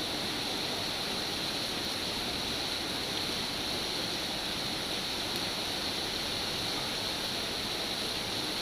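Steady rain falling, an even hiss that holds at one level.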